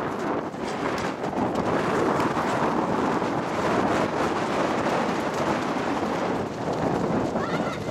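Wind buffeting the camcorder microphone, a steady rush of noise, with a brief high voice near the end.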